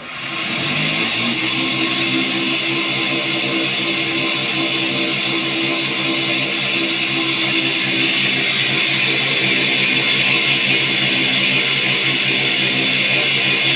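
Cotton candy machine's electric motor switched on, spinning up over about a second and then running steadily with an even hum and whir.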